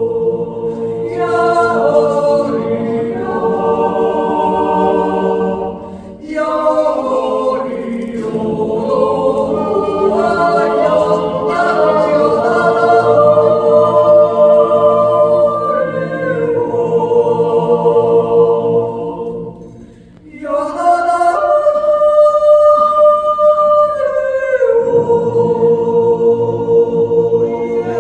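Swiss yodel choir of mixed men's and women's voices singing a cappella: the lower voices hold sustained chords under a higher voice that moves above them. The choir breaks off briefly between phrases about six seconds in and again about twenty seconds in.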